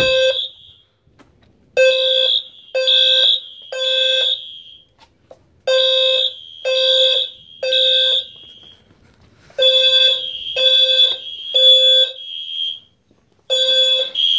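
Several fire alarm horns (System Sensor, Siemens and Wheelock horn and horn-strobe units) sounding together in the Code 3 temporal pattern: three short blasts, a pause, then three more, repeating about three times. The units run slightly out of step, so a higher tone trails briefly after each third blast.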